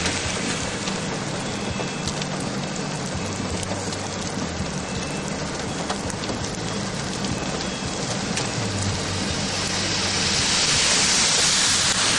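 Heavy rain pouring in a thunderstorm, a steady hiss with scattered drop ticks over a low steady hum. The rain grows louder again near the end.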